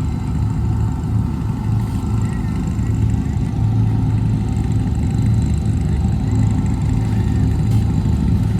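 Off-road racing UTV under way, its engine running steadily and loudly under a steady drone.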